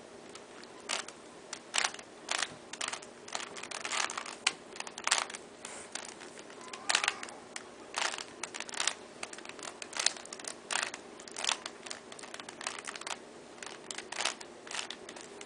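Rubik's Cube being turned by hand: a quick, irregular run of sharp plastic clicks and clacks as its layers are twisted, starting about a second in.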